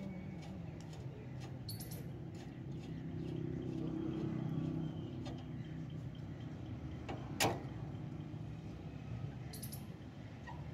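Low engine hum of a vehicle, swelling and easing again over the first half. One sharp knock about seven seconds in from hand work on the auto-rickshaw's wheel hub, and two brief bird chirps.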